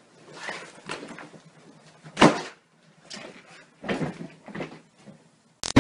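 A series of short knocks and rustling bumps of movement in a room, like a cupboard or door being handled. The sharpest, loudest knock comes about two seconds in.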